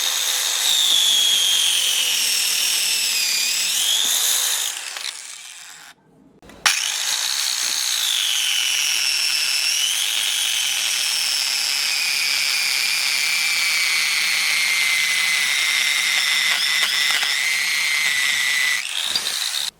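Amtech 230V 600W mini circular saw cutting stone: a high motor whine that dips in pitch as the blade bites into the material. It runs down and stops about five seconds in, starts again sharply a second later, and runs through a long cut that ends near the close.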